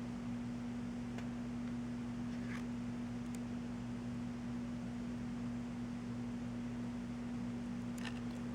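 Steady low electrical hum, with a few faint rustles and ticks of paper being handled.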